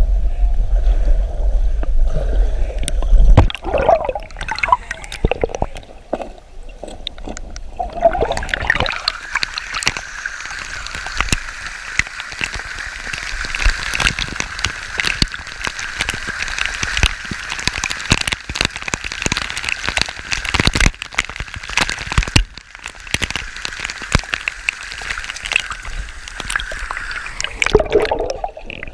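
Mountain stream rushing and gurgling over rocks, growing steady from about eight seconds in. A low rumble in the first few seconds cuts off suddenly.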